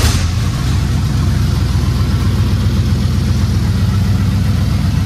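1989 Dodge half-ton pickup's engine, just started, idling steadily.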